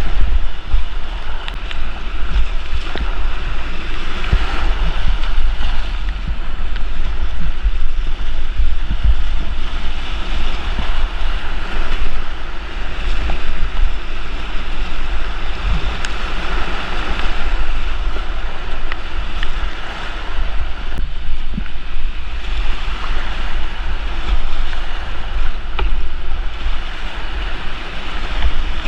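Creek whitewater rushing steadily, with wind buffeting the microphone as a heavy low rumble and scattered light knocks.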